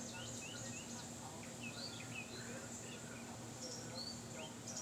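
Several small birds chirping, many short rising and falling notes overlapping, over a steady background hiss and a faint low hum.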